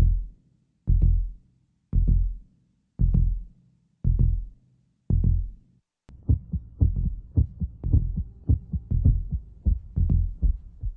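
Heartbeat sound effect: deep, single thumps about once a second, then from about six seconds in much faster beats, about three a second, over a continuous low rumble, like a racing heart.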